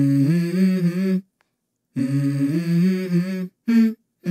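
A voice humming a slow melody without words, held notes stepping up and down, in short phrases cut off by abrupt silences about a second in and near the end.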